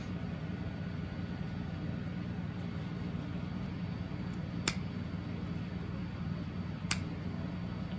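Small scissors snipping yarn ends twice, two short sharp cuts a little over two seconds apart, over a steady low hum.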